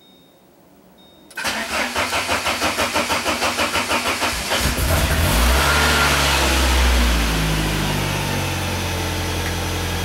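1994 Saab 9000 engine cranked by the starter for about three seconds, then catching, revving up briefly and settling into a steady idle. It starts on its rebuilt fuel pump, the pump having been the cause of its no-start all along.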